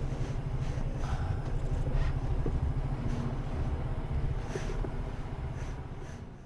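Diesel engine of a Mercedes-Benz Antos 18-tonne lorry running at low speed, heard from inside the cab as the lorry pulls up: a steady low rumble with a few faint clicks.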